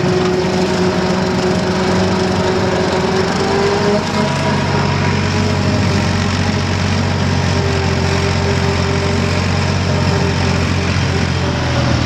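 Ford diesel tractor engine running steadily while driving and mowing. About four seconds in, its sound turns deeper and heavier.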